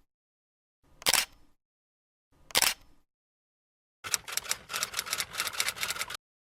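Three sharp, short snaps about a second and a half apart, then, about four seconds in, a run of rapid clicks lasting about two seconds that stops suddenly.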